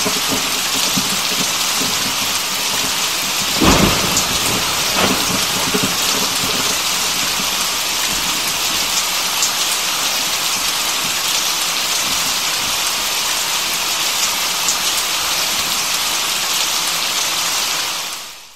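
Heavy rain falling steadily, with a low rumble of thunder about four seconds in and a smaller one a second later; the rain fades out at the very end.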